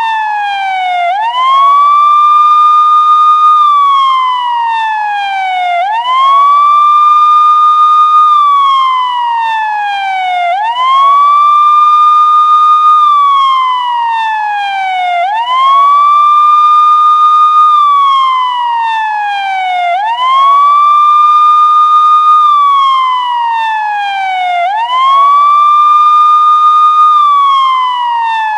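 Police siren in wail mode: the tone sweeps quickly up, holds at the top for a couple of seconds, then slides slowly down, repeating about every five seconds without a break.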